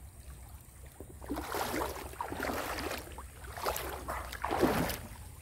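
Shallow river water splashing and sloshing in uneven surges as a person lying in it moves about and reaches under rocks, starting about a second in, with the loudest splash near the end.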